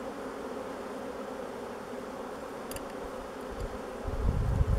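Honeybees buzzing around an open, disturbed hive: a steady, even hum from many bees. A brief low rumble comes in near the end.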